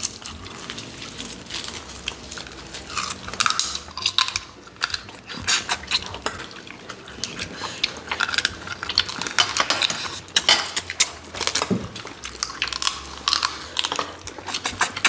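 Eating at the table: many short clicks of utensils against dishes, mixed with chewing and biting.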